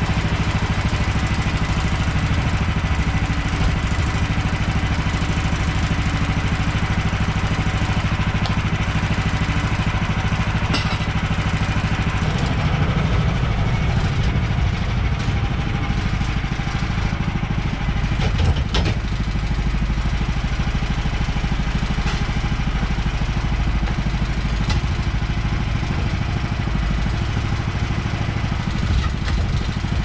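Small gas engine of a Woodland Mills portable bandsaw mill running steadily. Its sound changes about twelve seconds in, and there are a couple of sharp knocks, the clearest just before the twentieth second.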